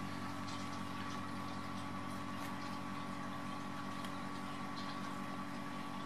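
A steady mechanical hum with a constant higher tone, and faint scattered ticks over it.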